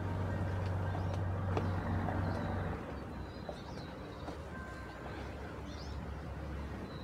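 Outdoor riverside ambience: a low steady rumble, which drops in level and pitch about three seconds in, with birds chirping now and then over it.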